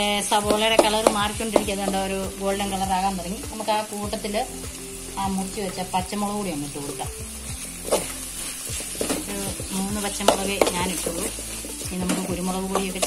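Sliced onions frying in oil in a steel pan, sizzling steadily, while a steel spoon stirs them with repeated scrapes and clicks against the pan. Background music with a melody plays along with it.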